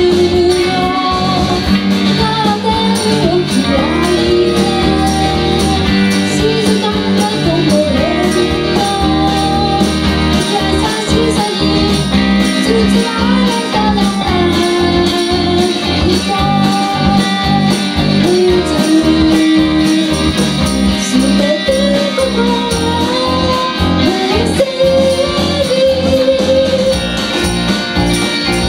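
Live band playing a pop song: a woman sings the lead over electric bass guitar, drums, acoustic guitar and tambourine.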